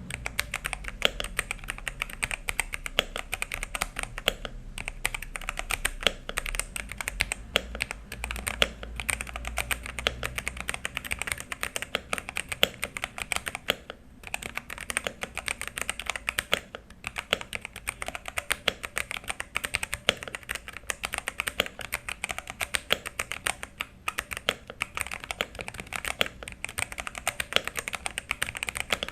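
Typing on a modded Xinmeng X87 mechanical keyboard with Thunderobot brown (tactile) switches: a fast, continuous run of keystroke clacks with a few brief pauses.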